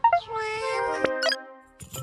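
A cartoon robot's squeaky, chirpy babble of short gliding tones, with a sharp click about a second in.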